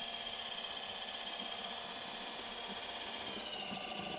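Small 12-volt electric oil extractor pump, about 30 years old, running with a steady whine as it sucks engine oil up the dipstick tube. About three and a half seconds in, its pitch steps up. The owner says it sounded really weird just before it gave out.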